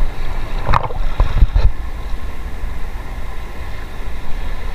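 Wind buffeting the microphone over shallow sea water, a steady low rumble, with a few short splashes or knocks about a second in from people wading and handling a fishing net.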